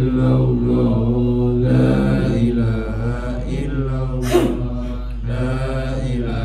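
Men chanting Islamic dhikr together in a slow, drawn-out melody, led by one voice on a microphone, over a steady electrical hum. A brief click sounds about four seconds in.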